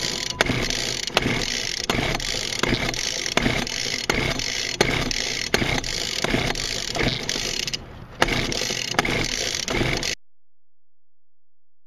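Small air-cooled two-stroke engine, of the string-trimmer type, running roughly with a sharp pop about every three quarters of a second. It nearly dies just before 8 seconds, picks up again, and the sound cuts off about 10 seconds in.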